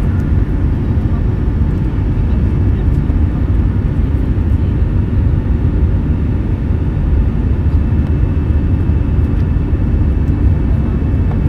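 Steady cabin roar of an Airbus A320 in flight, heard from a window seat beside its wing-mounted CFM56 turbofan: engine and airflow noise, heaviest in the low end. A faint high whine comes in about eight seconds in.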